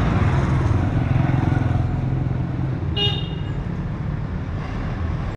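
Motor vehicle engine running steadily amid road noise, with a short horn toot about three seconds in.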